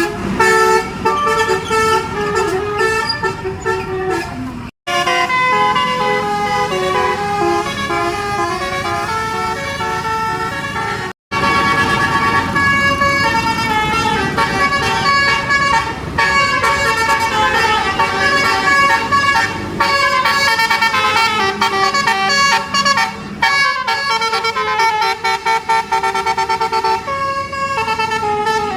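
Bus telolet basuri horns playing multi-note melodies, the tones stepping quickly from note to note. The sound breaks off sharply twice, about five and eleven seconds in, as one horn tune gives way to another.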